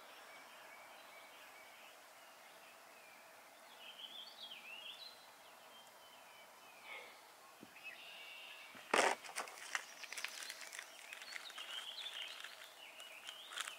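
Faint outdoor background with birds chirping, then a sharp click about nine seconds in, followed by a few seconds of small clicks and rustling as small items are handled by hand.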